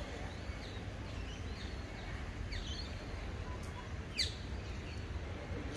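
Outdoor ambience with several short, falling bird calls, the loudest about four seconds in, over a steady low rumble.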